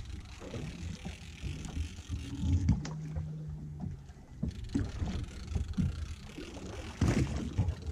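Sounds aboard a small fishing boat on open water while an angler reels in a fish: wind and water against the hull, with scattered knocks. A steady low hum comes in for about a second and a half around three seconds in.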